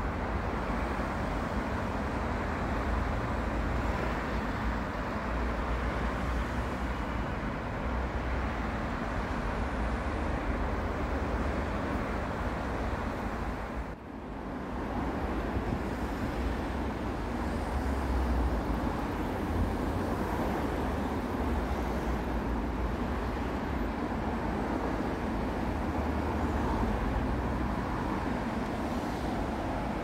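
Steady noise of heavy city road traffic, cars and buses rushing past on a multi-lane road. It drops briefly about halfway through, then picks up again.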